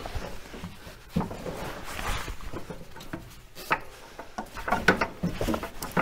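Metal front-suspension parts of a classic car knocking, clicking and scraping as they are worked by hand: irregular clunks, a short scrape about two seconds in and a quick run of clicks near the end.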